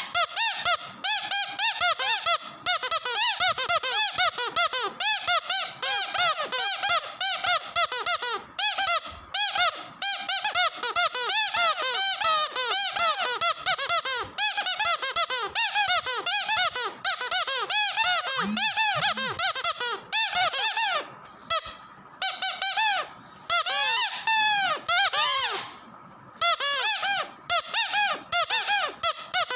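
Squeaky dog toy squeezed rapidly over and over: a fast run of high squeaks, each rising and falling in pitch, with a couple of brief pauses in the second half.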